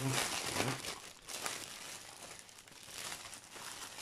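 Clear plastic bag crinkling as hands handle it to get it open, densest in the first second and a half, then softer.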